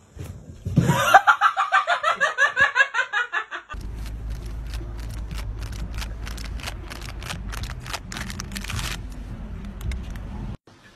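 A person laughing hard in rapid, even pulses for about three and a half seconds. Then, after an abrupt cut, a steady low rumble of wind on the microphone with a run of sharp clicks.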